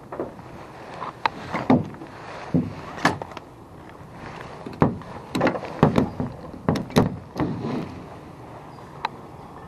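Ratchet tie-down strap being worked: irregular sharp clicks and clanks from its metal ratchet buckle, busiest from about five to eight seconds in.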